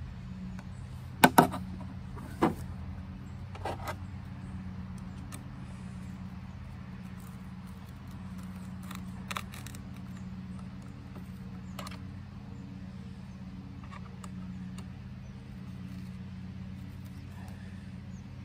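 Sharp metallic clicks and taps of the DeWalt pole saw's sprocket cover, chain and hand tools being handled during chain installation: a loud double click about a second in, then a few lighter clicks spread out. A steady low hum runs underneath.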